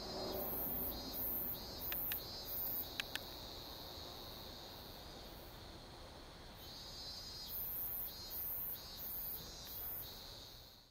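Insects calling outdoors: a high, pulsing chirp repeated about two or three times a second in two bouts, over a faint steady background hum. Two light clicks about two and three seconds in.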